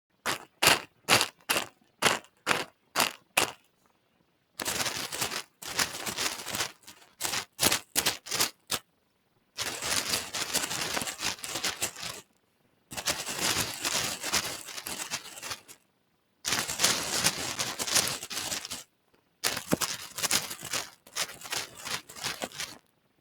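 Small hard trinkets, such as plastic beads and clips, handled for ASMR: about nine separate sharp clicks in the first few seconds, then several bursts of dense clattering and rattling a few seconds long with short pauses between.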